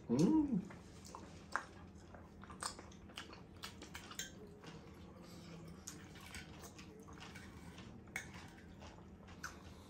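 Close-up chewing and wet mouth sounds of a person eating steak and mashed potato, with scattered short clicks and smacks. A short hummed "mmm" comes right at the start.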